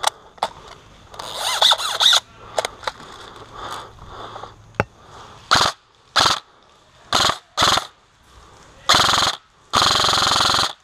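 Airsoft M4-style rifle firing full-auto bursts: four short bursts, then two longer ones near the end.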